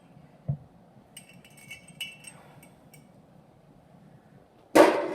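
Metal gear being handled: a dull thump, then a run of light metallic clinks and rings, and near the end one loud, sharp clank of metal on metal.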